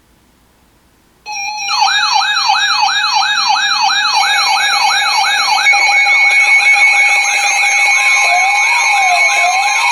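Several electronic sirens layered together, starting suddenly about a second in after faint hiss: a steady tone, then a fast yelp sweeping up and down about four times a second, with more tones joining and a slower rising-and-falling wail added near the end.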